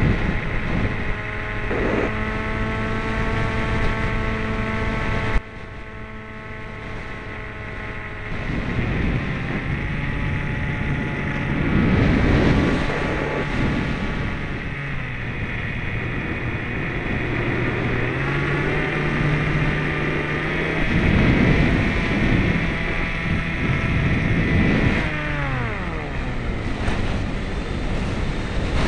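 Model airplane's motor and propeller heard from the onboard camera, a steady whine over wind rush. The whine cuts back suddenly about five seconds in and returns a few seconds later as the throttle opens again. It steps up in pitch past the middle and glides down in pitch near the end as the throttle is eased off.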